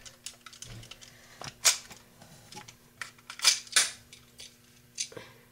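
Plastic clicks and clacks from a handheld cassette tape recorder being handled, its buttons pressed and its cassette compartment worked: a scatter of sharp clicks, the loudest about a second and a half in and a close pair around three and a half seconds in.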